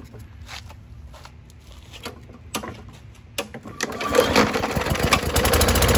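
Primer bulb on a Briggs & Stratton 125cc push-mower engine pressed a few times with soft clicks, then the recoil starter is pulled and the engine catches about four seconds in, running faster and settling into a steady run.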